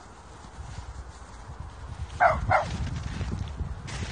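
A young Kooikerhondje puppy gives two quick, high, falling yaps about two seconds in, over a low rumbling noise.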